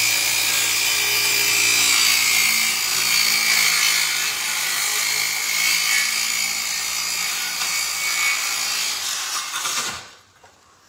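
Ryobi cordless circular saw running and cutting through a thin plywood sheet: a loud, steady high whine with hiss that cuts off about ten seconds in as the cut is finished.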